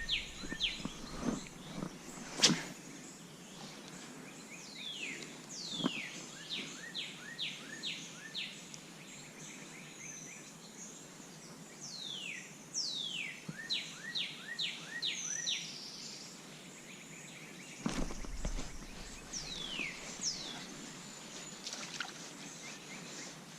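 A songbird singing the same phrase three times, each a couple of high downward slurs followed by a quick run of short notes, over a steady outdoor background hiss. A few sharp clicks sound in between.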